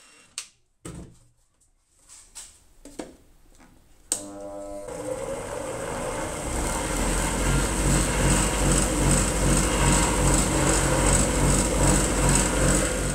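A few light knocks and clicks, then a click about four seconds in as a 400 W bench grinder is switched on. It spins up and settles into a steady run, turning a homemade wooden sanding drum through a V-belt, with a regular beat about three times a second.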